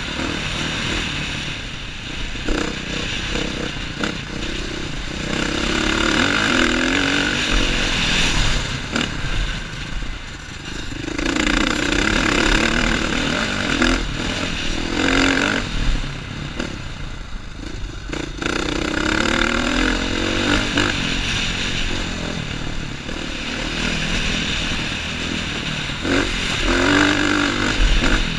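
2015 KTM 450 XC's single-cylinder four-stroke engine under way on a dirt trail, its revs rising and falling with the throttle in several surges.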